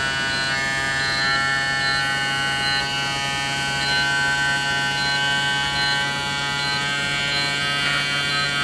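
Kemei KM-2242 cordless hair clipper running with a steady buzz. Its motor speed is being stepped up in 100 RPM increments toward 9,000 RPM, so the pitch shifts up slightly in small steps.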